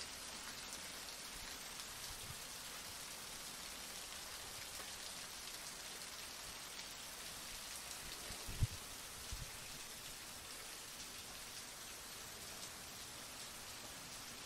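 Heavy rain falling steadily, a dense even hiss of drops. A single short low thump sounds about two-thirds of the way through.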